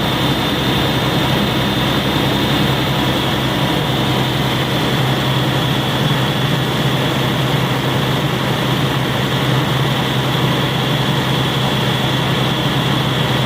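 Caterpillar C9 inline-six diesel engine running steadily, with a steady high whine over the engine note. The engine has an injector misfire.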